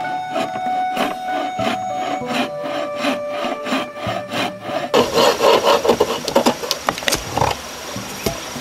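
Hand saw cutting through wood in steady back-and-forth strokes. About five seconds in it changes abruptly to louder, rougher sawing strokes.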